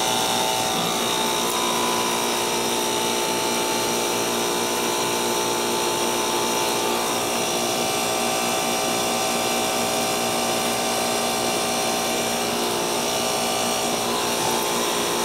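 A 2.5-ton Ruud central air condensing unit running at close range, with its Copeland scroll compressor and condenser fan giving a steady hum of several fixed tones that does not change.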